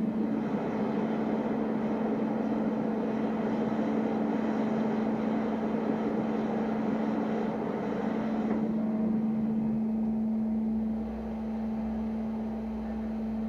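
Homemade smelting furnace running with its air blower on: a steady hum under a rushing roar. The roar drops away about eight and a half seconds in while the hum carries on.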